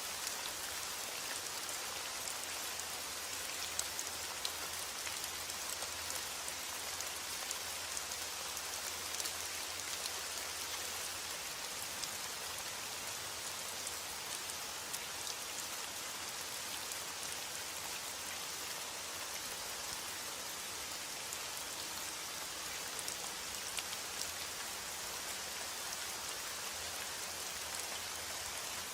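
Steady rainfall, an even hiss with scattered small drop ticks.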